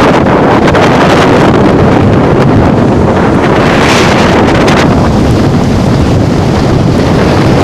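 Strong wind buffeting the microphone, loud and continuous.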